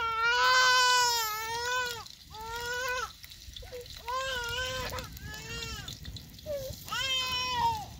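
A baby crying: one long wail, then a string of shorter cries about a second apart.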